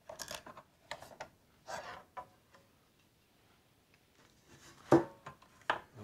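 Screwdriver backing screws out of the 3D printer's sheet-metal base cover, with short metallic clicks and scrapes over the first two seconds. Two sharper knocks near the end as the metal cover and power supply are handled.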